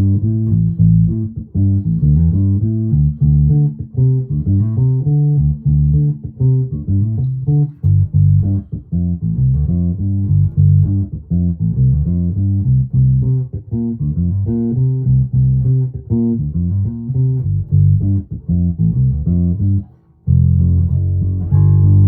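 1996 Alembic Epic four-string active electric bass played through an amplified signal, a quick, continuous line of plucked low notes with the preamp's bass control boosted all the way. Near the end the playing stops briefly, then a note is let ring.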